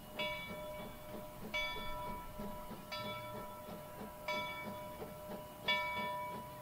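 Bell of Monson Railroad No. 3, a two-foot-gauge Forney steam locomotive, ringing steadily as the train runs, about one stroke every second and a half. A faint low chuffing beat sits underneath.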